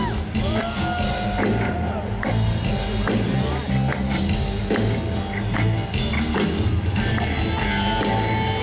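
Live rock band playing an instrumental intro through a concert PA: a heavy, pulsing bass beat with cymbals struck over it, heard from the audience.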